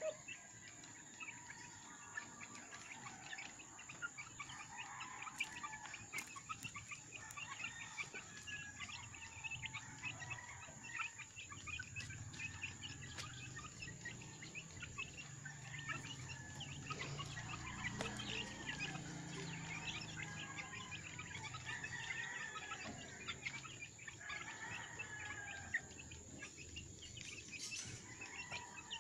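Flock of month-old chicks peeping softly while pecking feed from a wooden trough, a steady patter of small quick taps mixed with short chirps.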